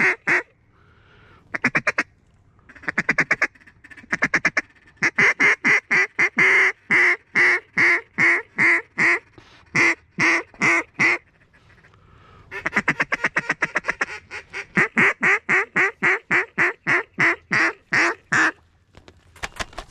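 Duck call blown in fast strings of loud, evenly spaced quacks: several short runs, then two long runs of about six seconds each with a short pause between.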